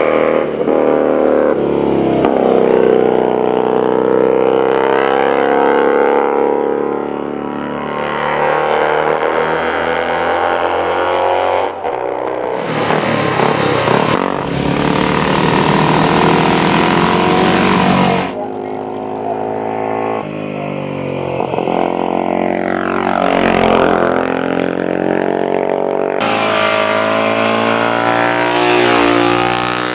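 Racing motorcycle engines revving and passing, the engine pitch rising and falling, in several segments that change abruptly about twelve, eighteen and twenty seconds in.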